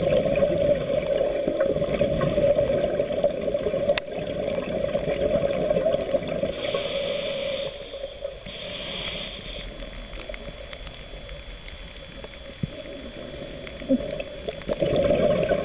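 Scuba diver's regulator breathing underwater: a long rush of exhaled bubbles, then two short high hisses of the regulator about seven and nine seconds in, and bubbles again near the end.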